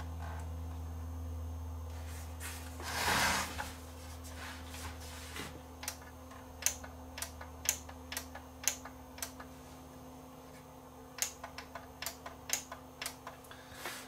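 Steady low electrical hum from a CRT television that powers up but shows no picture, with a brief rustle about three seconds in. Through the second half comes a run of light, irregular clicks about a second apart.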